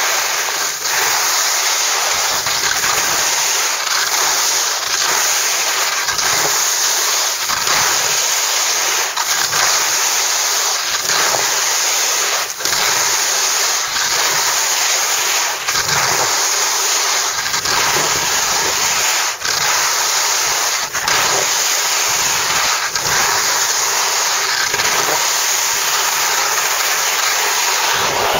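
Steady, loud rushing hiss of a fast slide down a groomed snow slope: snow scraping underfoot and wind over the microphone, with a few sharp knocks along the way.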